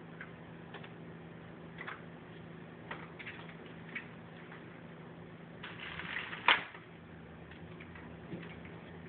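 A toddler handling toys: scattered light taps and clicks, then a short scuffing rustle ending in one sharp knock about six and a half seconds in.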